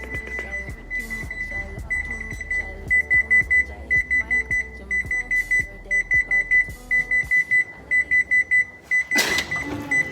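Timer alarm going off: a high electronic beep in quick groups of four or five, each group about a second after the last, signalling that the cooking time is up. Faint music plays underneath, and a short burst of noise comes near the end.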